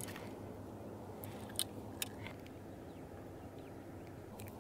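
Quiet, steady low background rumble with a few short faint clicks and rustles as a bluegill is handled in gloved hands and the jig is worked out of its mouth.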